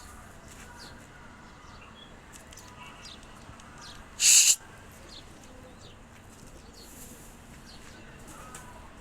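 Domestic pigeon's wings flapping in one brief loud flurry about four seconds in, over faint, scattered bird chirps.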